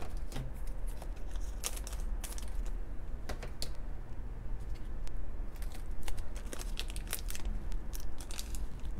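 Light clicks and crinkles of small plastic toy miniatures and a foil blind-bag wrapper being handled and set down: a scatter of short, irregular taps.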